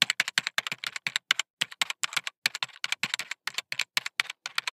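Computer keyboard typing sound effect on a video's intro title: a rapid run of key clicks, about six a second, that stops suddenly near the end.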